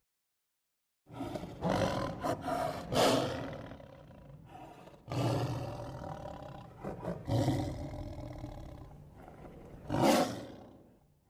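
Lion roaring: a run of roars and grunts, the loudest about three seconds in and another strong roar near the end.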